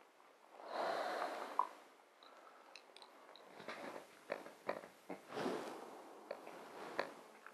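A Finnish Spitz sniffing and crunching small dry treats off the ground: a string of short snuffles and crunchy bites in the second half. A rustle about a second in.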